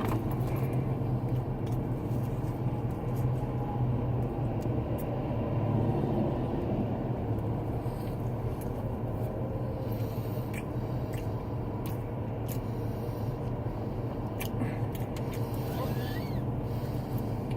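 Steady low rumble of an idling car engine, with a few faint scattered clicks.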